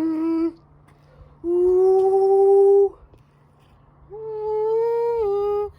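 A voice humming three long held notes, each about a second and a half, with quiet gaps between. The pitch steps up or down a little within each note.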